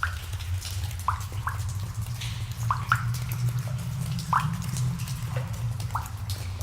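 Cave ambience: water drops falling into pools, each one a short rising plink at uneven intervals, over a steady low rumble.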